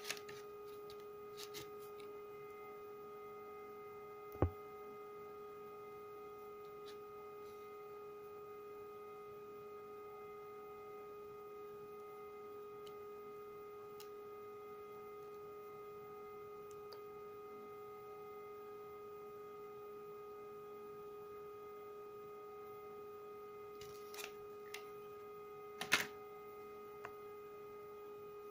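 Steady electrical hum at one fixed pitch with higher overtones. A sharp knock about four seconds in and a few clicks near the end come from the plastic blister pack being handled.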